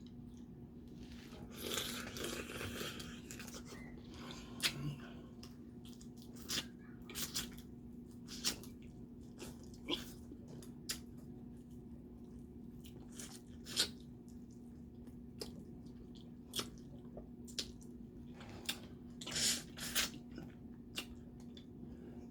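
Close-miked eating of snow crab legs: scattered sharp cracks and snaps of shell along with chewing. There are two longer crunching stretches, one near the start and one about three-quarters of the way through.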